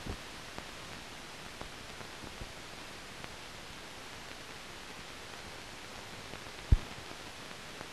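Steady hiss of an old film soundtrack, with a few faint clicks and one sharper, louder pop near the end.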